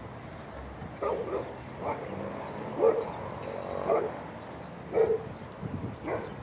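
A dog barking repeatedly, short barks about once a second.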